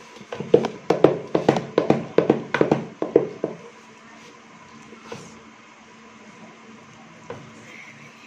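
Wooden ghotna (lentil masher) knocking and mashing cooked lentils for haleem in a metal pot: a quick run of about a dozen knocks, about four a second, for the first few seconds, then quieter mashing with a few faint taps.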